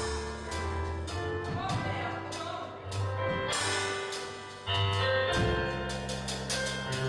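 Instrumental music with held bass notes and pitched tones over frequent percussive hits.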